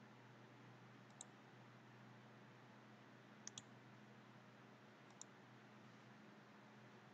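Computer mouse buttons clicking: a single click, a quick double click about halfway through, then another single click, over a faint steady hum.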